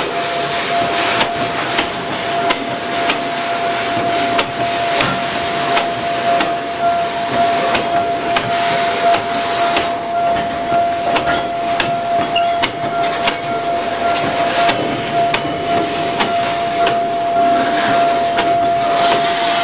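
Train of steel ladle cars hauled by an SY steam shunting locomotive rolling past on rails: a steady rumbling rattle with frequent irregular metallic clanks and knocks, and a steady thin high whine.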